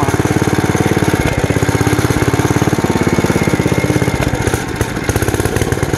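1949 Bolens Ridemaster's single-cylinder Wisconsin AKS engine running as the tractor drives, a fast, even train of firing pulses with a brief dip in level about four seconds in. The owner says the engine is not running right and needs a new carburetor.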